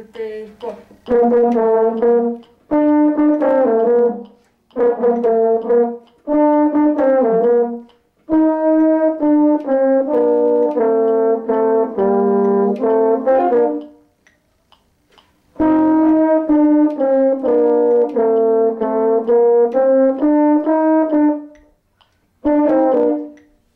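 Two French horns playing a duet together, one part above the other, in short phrases with brief breaths between them and a longer pause about two-thirds of the way through.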